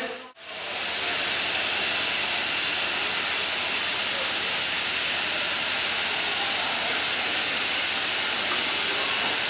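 Steady hiss of steam from steam locomotive B2B 213 standing at the platform, setting in after a brief drop near the start.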